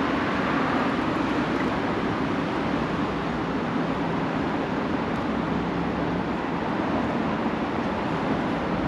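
Steady road traffic noise: a continuous rumble and hiss of cars on the street and on the elevated expressway overhead.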